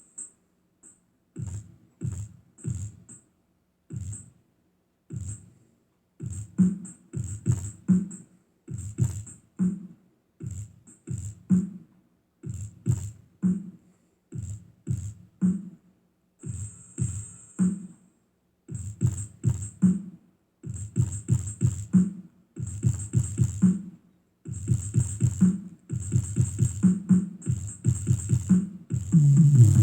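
Bass-heavy electronic music played through a speaker woofer for a low-frequency test. The beat starts sparse and becomes denser and louder later on, each low thump paired with a crisp high tick.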